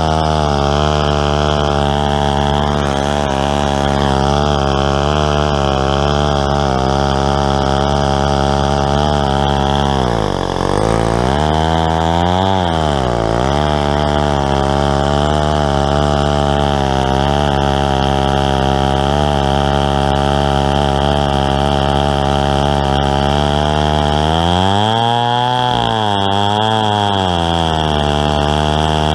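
Stihl 090 chainsaw, a big two-stroke, running at high revs while ripping a log lengthwise in a homemade chainsaw mill. The engine pitch sags and recovers twice about a third of the way in, and again for a couple of seconds near the end, as the bar loads up in the cut.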